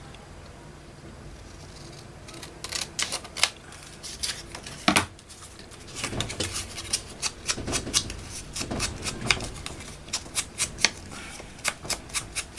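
Scissors snipping through paper: a run of short, crisp, irregular snips that begins about two seconds in.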